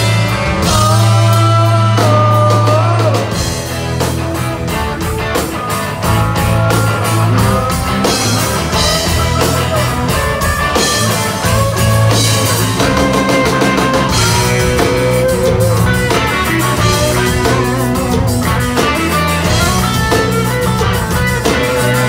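Rock band playing live: electric guitars, bass guitar and drum kit, loud and continuous, with a held lead note bending in pitch about two to three seconds in.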